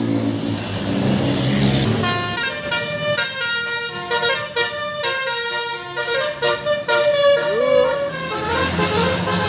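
A bus engine running, then from about two seconds in a basuri telolet multi-tone bus horn plays a tune of changing held notes.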